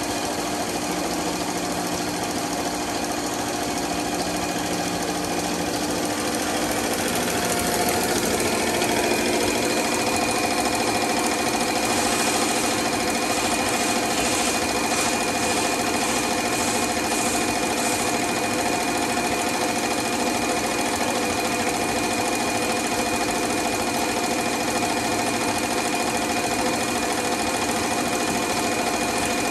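High-speed individual straw wrapping machine running at about 800 straws a minute on PHA straws: a steady, dense, fast mechanical clatter with constant high and mid tones over it.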